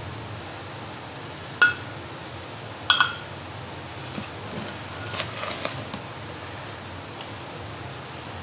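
Hard containers being handled: two sharp, ringing clinks a little over a second apart, then a quick run of lighter clicks and taps, over a steady background hiss.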